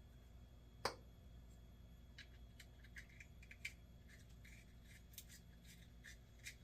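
Faint small clicks and light taps of small fishing-reel parts being handled, with one sharper click about a second in and a run of quieter ticks later on.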